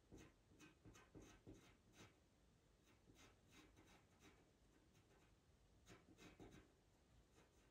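Faint scratching of a pastel pencil drawing short strokes on Pastelmat paper: a few strokes a second at first, sparser in the middle, then a quick cluster again about six seconds in.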